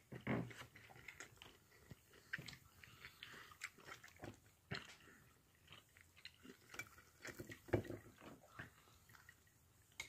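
Quiet close-up chewing of bacon, with scattered small clicks and knocks as fingers pick at bacon-wrapped woodcock on a plate. A louder knock comes just after the start and another about three-quarters of the way through.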